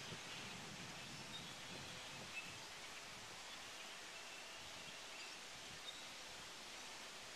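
Faint calls of a large flock of starlings, short high chirps scattered through the first several seconds over a steady hiss of outdoor background noise.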